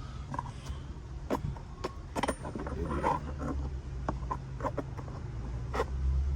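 Irregular sharp clicks and knocks of hand tools on metal while bolts are taken out of an engine's cylinder head, over a steady low hum.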